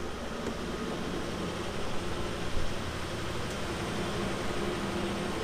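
Steady rush of wind and sea around a catamaran under way, with a low, even mechanical hum underneath.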